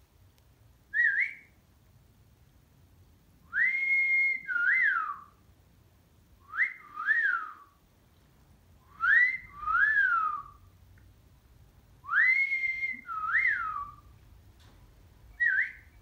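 A whistled tune repeated about every three seconds, four times: a rising note held briefly, then a shorter note that rises and falls. A short single chirp comes about a second in and another near the end.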